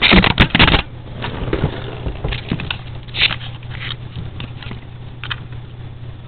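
Axial electric RC crawler truck moving on a tile floor: a burst of loud clattering knocks in the first second, then scattered scrapes and rattles.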